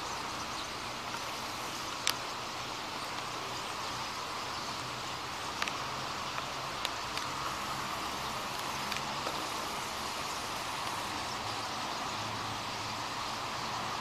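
A large flock of birds calling all at once, blending into a continuous dense din, with a few short sharp clicks standing out.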